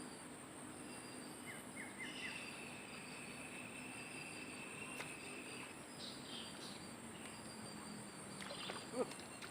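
Outdoor riverside ambience: a steady high insect chorus, with a quick run of short chirps and a long held whistling note in the first half. A soft knock comes near the end.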